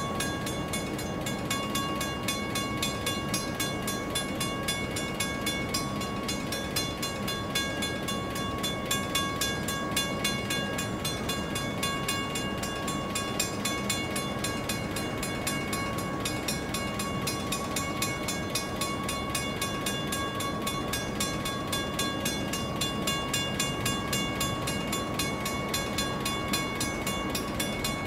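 Level crossing warning bell ringing steadily with rapid even strokes, while a freight train of container wagons runs past with a continuous rail rumble.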